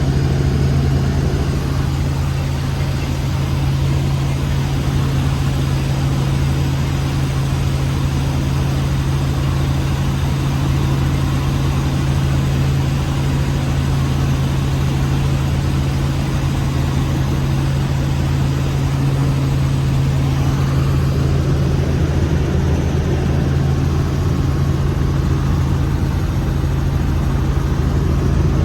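Helicopter engine and rotors running with a steady, loud drone that holds a low hum throughout.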